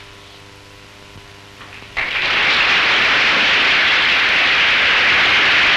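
About two seconds of low, steady hum, then the assembly of delegates breaks into applause. The applause starts suddenly and carries on loud and steady, greeting the adoption of the report.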